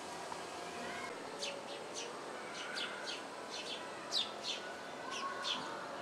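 Small songbirds chirping: a run of short, high, falling chirps, about a dozen, starting about a second in, over faint steady background noise.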